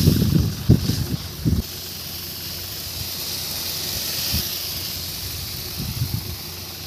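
Steady hiss of a tractor-driven pesticide sprayer spraying, with irregular low rumbles in the first second and a half and again around six seconds in.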